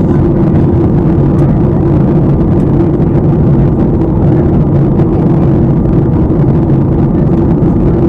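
Loud, steady cabin noise of a passenger jet in flight, heard from inside the cabin: the constant rush of jet engines and airflow, with a steady low hum.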